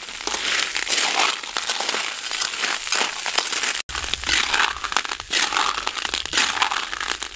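River snails in their shells rattling and scraping against a large aluminium wok as a metal spatula stirs them, in repeated strokes.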